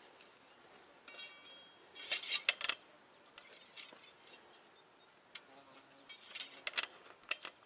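Light metallic clinks and taps from handling the oil dipstick and filler plug while checking the engine oil level on a Ural motorcycle. There is a ringing clink about a second in, a cluster of clicks at about two seconds, and more at about six seconds.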